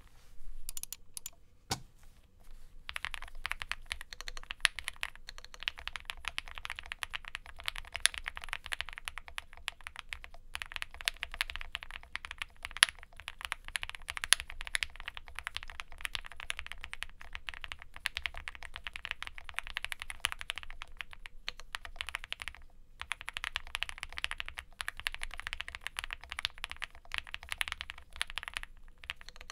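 Fast typing on an Owlab Spring Alice-layout mechanical keyboard with lubed C3 Banana Split linear switches, an FR4 plate, GMK keycaps and foam dampening: a dense run of keystrokes with a few short pauses. A few separate clicks come first, and the steady typing starts about three seconds in.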